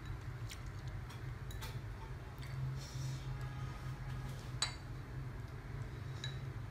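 Chopsticks tapping and scraping in a ceramic bowl, a scatter of small clicks with one sharper ringing clink a little past halfway, over a steady low hum.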